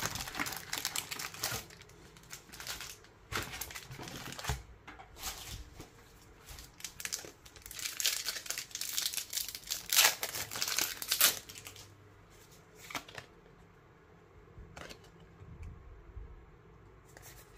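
Foil Pokémon TCG booster pack wrapper crinkling in irregular bursts as it is handled and torn open, loudest about ten seconds in, then quieter rustling of cards being handled.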